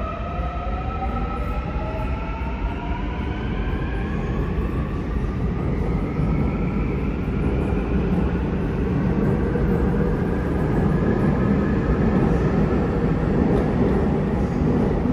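Seoul Subway Line 2 electric train accelerating away along the platform. Several motor whines climb in pitch over the first few seconds. They give way to a steady rumble of wheels on rail that grows louder as the train gathers speed.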